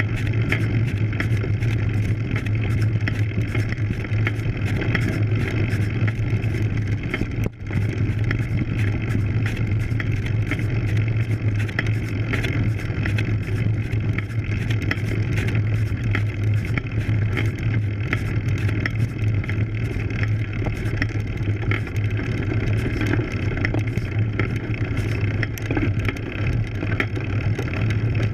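Road bike ridden slowly up a rough dirt climb, heard through a camera mounted on the bike: a steady low rumble of tyres and frame vibration with rapid rattling clicks throughout. The sound drops out for a split second about seven and a half seconds in.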